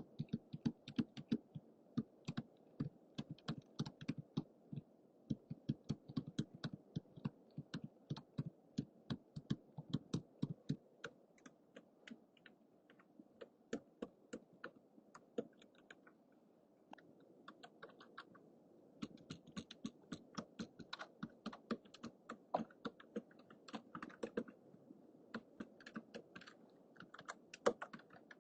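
Typing on a computer keyboard: quick, irregular runs of key clicks, fewer and more spaced out for a while in the middle before picking up again.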